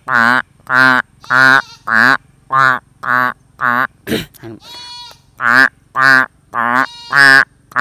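A man mimicking a duck's quacking with his voice through cupped hands: a string of short quacks about two a second, with a brief break just past the middle.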